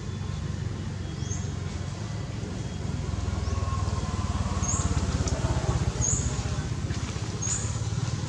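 A baby monkey squeaking: short, high-pitched chirps, one every second or so, with a faint lower call in the middle, over a steady low rumble.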